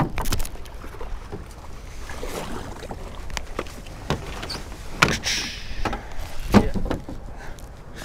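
Knocks and clatters from a small jon boat and its paddle as it comes up against the bank, over wind rumbling on the microphone.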